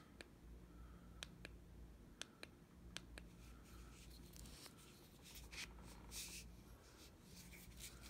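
Faint, separate clicks of a handheld LED flashlight's push-button switch being pressed through its modes, with soft rubbing from handling the light.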